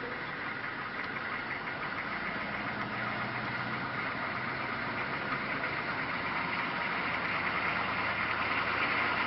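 An engine running steadily, growing gradually louder.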